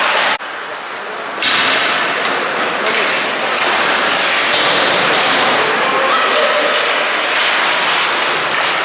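Ice hockey game noise in a rink: a steady din of shouting voices, with sharp knocks of sticks and pucks against the ice and boards. The din drops away briefly near the start, then comes back.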